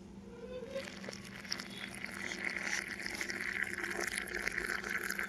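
Hot shunti coffee being poured through a strainer into a glass: a steady, trickling pour that starts about a second in.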